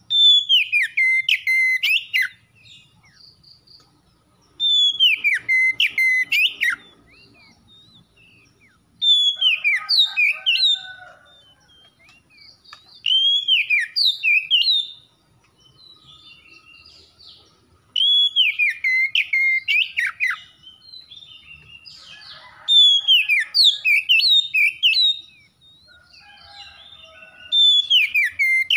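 Oriental magpie-robin singing: seven loud, repeated song phrases about every four to five seconds, each opening with a falling whistle and breaking into quick, varied notes, with soft quieter notes between phrases.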